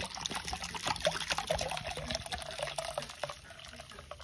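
Milk pouring from a plastic bottle into a metal pot, a steady stream splashing into the milk already in the pot, growing quieter in the last second.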